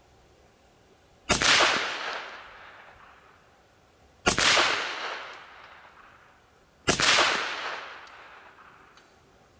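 Three shots from a BinTac T9 .357 (9mm) semi-automatic PCP air pistol, about three seconds apart, each a sharp crack whose sound dies away over about a second.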